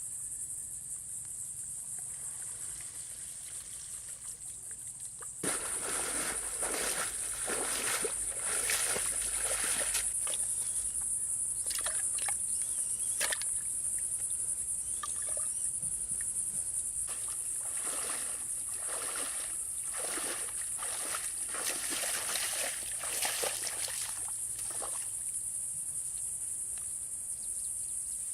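Water trickling and splashing at a fish pond, starting abruptly about five seconds in with irregular splashes, over a steady high-pitched hiss.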